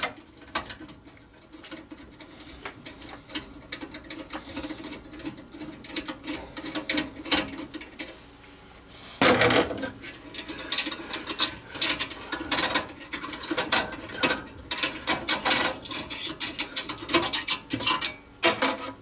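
Screwdriver turning out a small screw and small metal parts clicking and rattling as a gas furnace's flame rod is unfastened and worked free of its sheet-metal burner bracket. A louder scrape comes about nine seconds in, followed by quicker clicking as the rod and its wire are handled.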